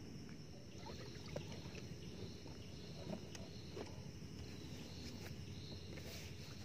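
Faint outdoor ambience in a small boat on the water: a low steady background noise with faint steady insect chirring above it, and a few light knocks.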